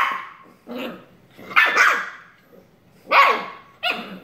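Shiba Inu puppies barking in rough play: about four short, high-pitched yappy barks, roughly a second apart.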